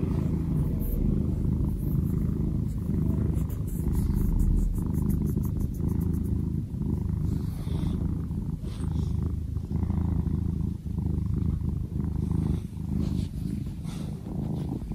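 Domestic cat purring close to the microphone, a steady low purr that swells and dips in a slow rhythm.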